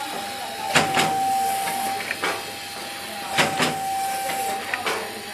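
Soap packaging and labelling machine running: a steady whine with sharp clicks and short hisses that come in pairs about every two and a half seconds, one cycle after another.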